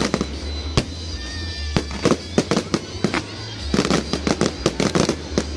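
Aerial fireworks display: sharp bangs of bursting shells at irregular intervals, with a rapid run of crackling pops about four seconds in.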